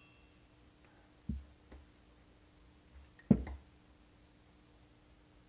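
A few knocks of metal pistons and connecting rods being handled and set down against each other on a towel-covered bench: a dull thump, a small tick, then a sharper, louder knock about three seconds in.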